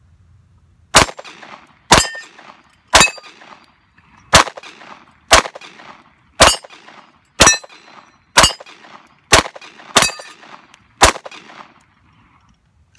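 Eleven 9mm pistol shots from a Glock, fired at a steady pace of about one a second, each with the ring of the bullet hitting an AR500 steel plate. The magazine feeds every round without a stoppage.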